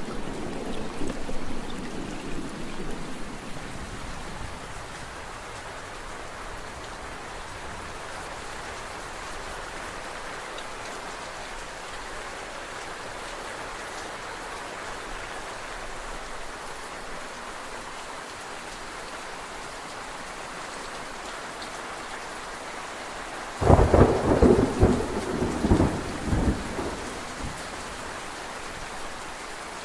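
Steady rainfall hissing throughout. A low thunder rumble fades over the first few seconds, and about 24 seconds in a loud thunderclap crackles and rumbles for about three seconds before the rain alone goes on.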